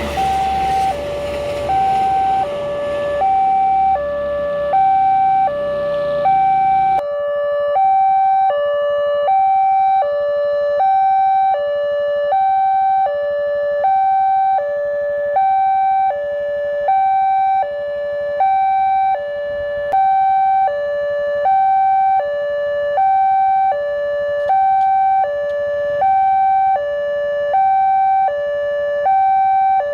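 Automatic railway level-crossing warning alarm from a horn loudspeaker, sounding a slow two-tone hi-lo pattern that alternates about every three-quarters of a second. For the first several seconds the rumble of a passing train lies under it, ending abruptly about seven seconds in.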